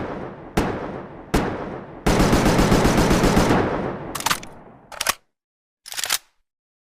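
Makeshift sound effect of AKM assault rifle fire: two single shots with ringing tails, then a fully automatic burst of about ten shots a second lasting about a second and a half, followed by three more single shots that cut off short.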